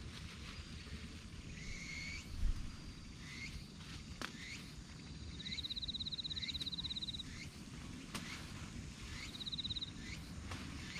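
Outdoor animal calls: short chirps repeating about every half second to a second, with a fast pulsed trill through the middle and a shorter one near the end, over a low rumble. A single thump about two and a half seconds in.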